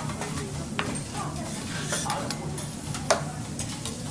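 Food sizzling on a teppanyaki griddle, with metal spatulas clicking and scraping on the hot plate; the sharpest click comes about three seconds in.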